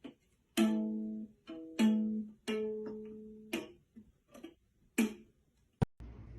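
Music: a short tune of single plucked string notes, each struck sharply and left to ring out. A sharp click comes near the end, then a cut to steady background hiss.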